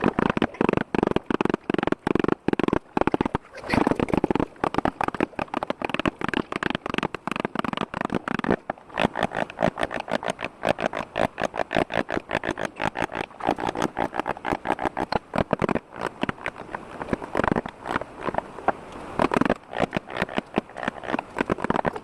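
Wood being worked by hand in quick repeated strokes, several a second, each a short scraping rasp, with a brief pause about four seconds in.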